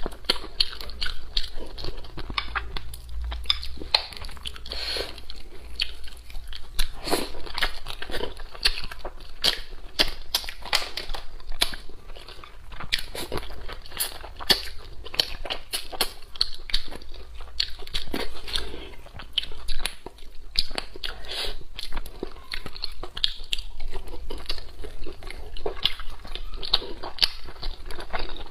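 Close-miked eating of braised fish with chopsticks: wet chewing, lip-smacking and mouth clicks coming irregularly, several a second.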